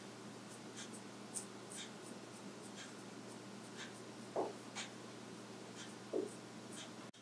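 Wet hands squeezing and pressing soft kebab mixture onto a flat metal skewer: faint sticky clicks and squelches, with two louder, lower squishes about four and six seconds in.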